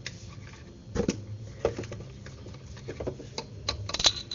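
Scattered light knocks and clicks of a milk container and measuring jug being handled while milk is measured out, over a faint steady hum.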